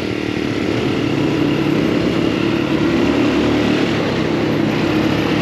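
Off-road buggy engine running steadily under way, a loud continuous drone with rough road and wind noise over it.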